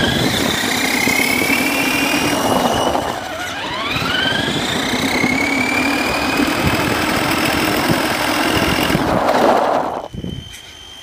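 RC car's electric motor whining under full throttle, heard from on board. The whine rises in pitch as the car accelerates, twice, then holds steady over gear and tyre noise on tarmac, and drops away about ten seconds in.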